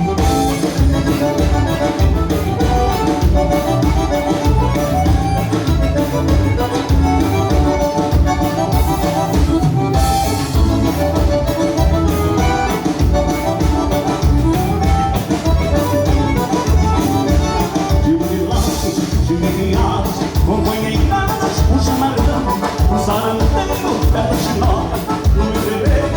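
Gaúcho dance-band music, an instrumental stretch led by accordion over a steady bass-and-drum beat.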